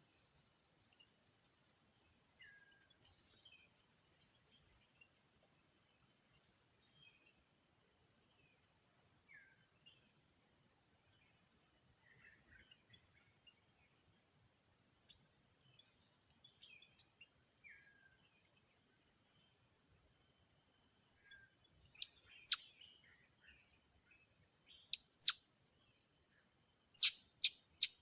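Insects droning steadily in a high, even whine. From about 22 seconds in come several short, sharp, high-pitched chirps of blue-crowned hanging parrots (serindit), louder than the drone and quickening near the end.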